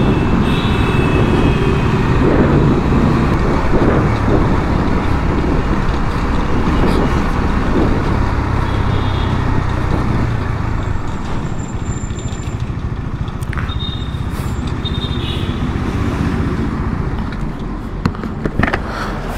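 KTM Duke's single-cylinder engine running at low city speed, mixed with wind and road noise on the bike-mounted microphone and surrounding traffic. The sound eases a little after about twelve seconds as the bike slows.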